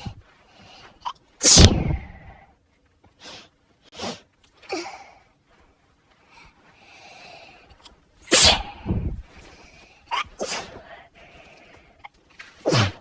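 A person sneezing again and again in an allergic fit set off by dust. There are three loud sneezes: about a second and a half in, a little past eight seconds, and near the end. Shorter, quieter sounds come between them.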